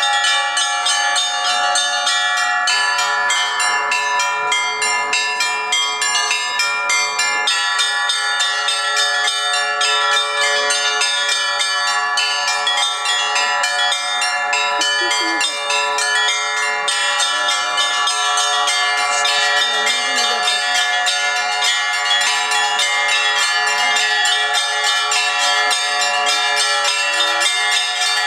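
Russian church bells ringing in a continuous peal: small bells struck in quick succession over the steady ringing of larger bells.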